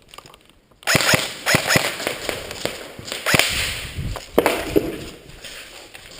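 Airsoft guns firing: after a near-silent start, sharp single cracks come at irregular intervals from about a second in, over a haze of movement noise.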